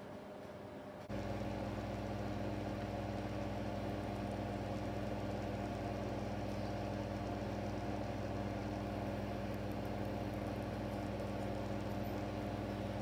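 Steady mechanical hum of a running kitchen appliance motor, a few fixed tones held without change, starting suddenly about a second in.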